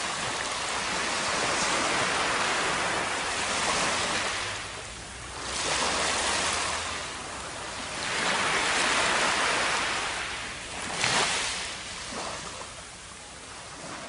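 Small surf washing up a sandy beach: a rushing hiss that swells and falls back in four or five surges, with one sharper splash about eleven seconds in.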